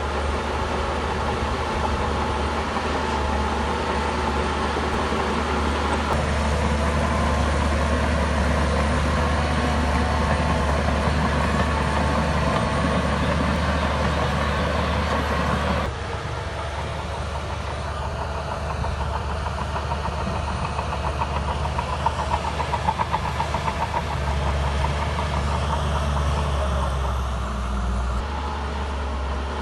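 Shantui crawler bulldozer's diesel engine running steadily with heavy mechanical noise as it works. The sound changes abruptly about halfway through, and a run of quick repeated knocks comes in a little later.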